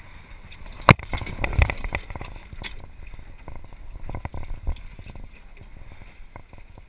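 Small sailing dinghy changing tack with the boom swinging across. A sharp knock comes about a second in, then a run of knocks and rattles from the boom, mainsheet and hull fittings, over the wash of water along the hull and wind on the microphone.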